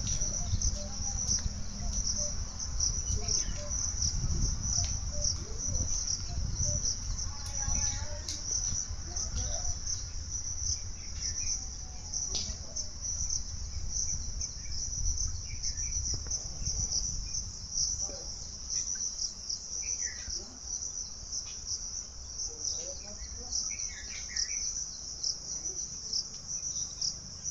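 Insects trilling in a steady high-pitched chorus, with faint short bird chirps here and there. A low rumble sits under it during the first several seconds.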